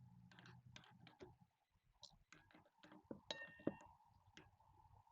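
Faint scattered clicks of metal parts and hand tools being handled, with one sharper metallic clink that rings briefly about three and a half seconds in.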